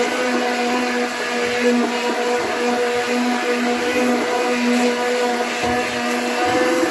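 Hand-held immersion blender running in a pot of fish soup, puréeing it. Its motor holds a steady pitch.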